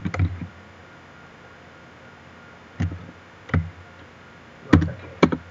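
Computer keyboard keystrokes: a quick cluster of taps at the start, then four single taps spaced about a second apart in the second half.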